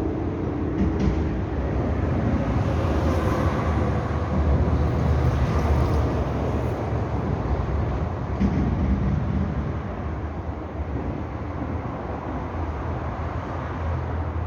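Steady low rumble of a vehicle in motion, with faint knocks about a second in and again about eight and a half seconds in.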